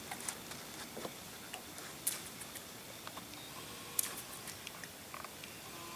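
A few sharp, isolated clicks and taps, the loudest roughly two seconds apart, from the fishing rod and baitcasting reel being handled during a cast and retrieve.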